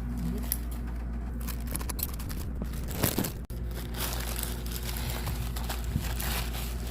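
Packaging crinkling and rustling as it is handled and opened, with small clicks and a louder crinkle about three seconds in. A steady low hum runs underneath.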